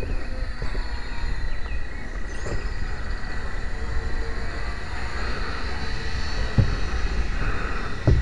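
Thin, steady whine of a ParkZone UM Mosquito RC model's twin electric motors as it flies overhead, under low wind rumble on the microphone. A couple of brief low knocks come about six and a half seconds in and at the end.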